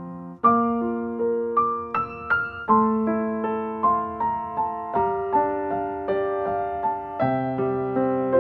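Instrumental keyboard music with a piano-like sound: a gentle melody of separate struck notes, each fading after its attack, about two or three a second, over sustained chords. There is no singing.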